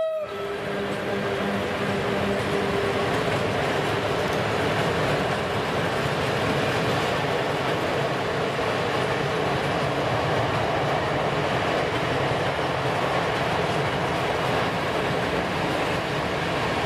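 Open coal wagons (gondolas) of a PKP Cargo freight train rolling steadily past on the rails. A low hum dies away about three seconds in.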